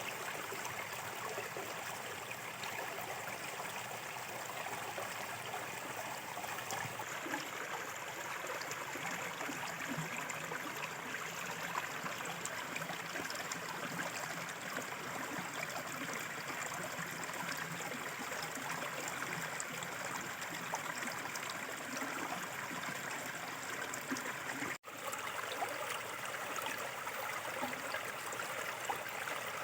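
Small river flowing with a steady rush of water. The sound drops out for an instant about 25 seconds in.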